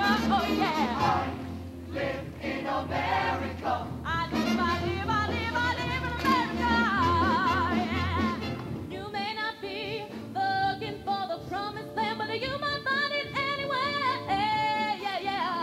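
Show choir singing with instrumental accompaniment. About halfway through, the backing thins and a female soloist sings with vibrato into a handheld microphone.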